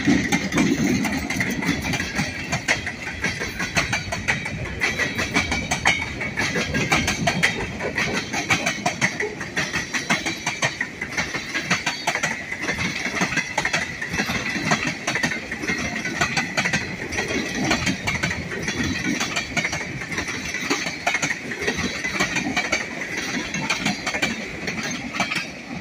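Diesel-hauled freight train of tank cars rolling past at close range: a steady rumble of wheels with a rapid clatter over the rails and a steady high tone above it. The locomotive's diesel engine is heard in the first couple of seconds as it goes by, then fades.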